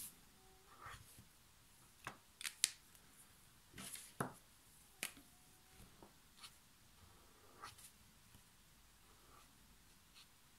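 Faint sharp clicks and taps of brush-pen caps and pens, bunched between about two and five seconds in, between soft strokes of an Ecoline brush pen's tip on watercolour paper.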